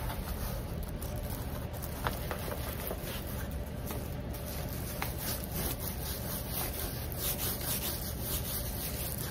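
A diamond painting canvas being rolled up by hand, its paper backing rubbing and rustling, over a steady low hum.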